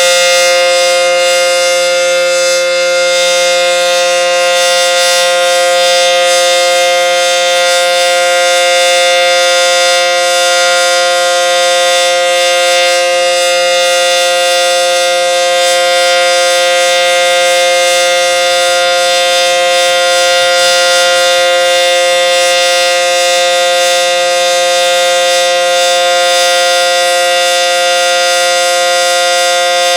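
ACA Banshee 115 outdoor warning siren sounding its full alert, a loud steady tone made of several pitches at once that neither rises nor falls.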